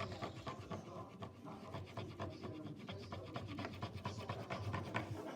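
Quick, irregular scratching strokes of a colouring tool rubbing back and forth on paper as an area is coloured in.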